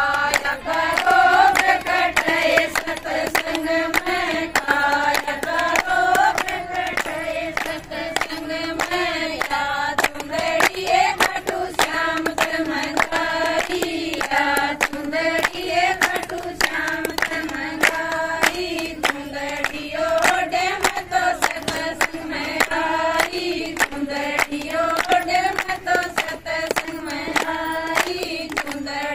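Women singing a Haryanvi folk song, with steady rhythmic hand claps keeping the beat.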